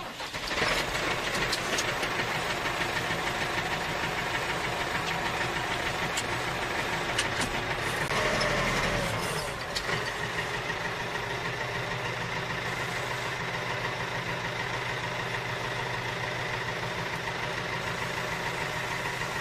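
Steady engine-like mechanical running. It grows a little louder about eight seconds in, then settles back to a steady level about two seconds later.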